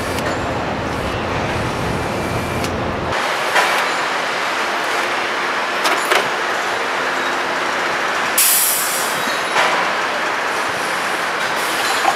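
Car assembly-line factory noise: a steady din of machinery with short knocks and clanks, and a brief hiss of air about eight seconds in. A low rumble underneath drops away about three seconds in.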